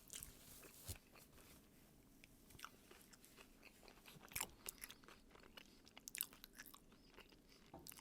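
Chewing and crunching of crunchy Taco Bell food, a run of irregular crisp crunches with the sharpest bites about four and six seconds in.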